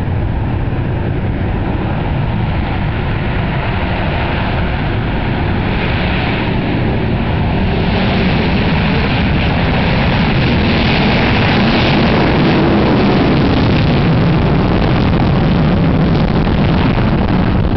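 Rockwell B-1B Lancer bomber's four General Electric F101 turbofan engines making loud, steady jet noise, which swells a little towards the middle as the aircraft passes.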